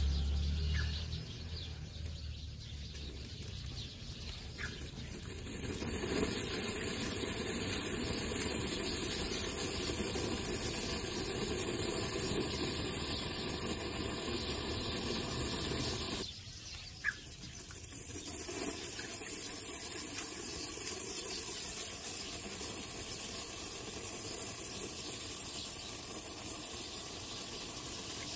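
Firework fountain spraying sparks with a steady hiss that builds up about five seconds in after lighting. The hiss drops suddenly about sixteen seconds in and carries on more quietly.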